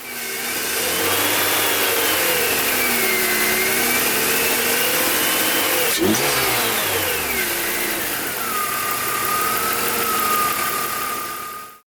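BMW M54 inline-six engine running with a whistling, whining noise from the front of the engine; the owner traces it to the alternator but is not sure it is the bearing. The whine rises and falls in pitch with the revs, then holds steady in the last few seconds. There is one sharp click about halfway.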